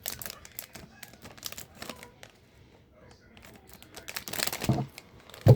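Hot Wheels mystery-model blind packs being handled: scattered light clicks, taps and crinkles of the plastic packaging, with louder rustling a little past four seconds in.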